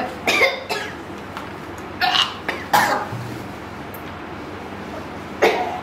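Women coughing and clearing their throats in about four short, sudden fits after swallowing a spoonful of a foul-tasting liquid.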